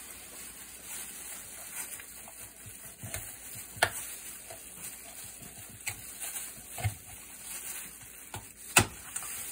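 Large kitchen knife cutting through a rotisserie chicken and knocking on the cutting board, with handling noise between scattered sharp knocks; the loudest knock comes near the end.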